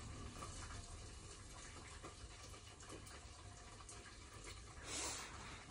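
Faint room tone with a steady low hum, and one brief soft hiss about five seconds in.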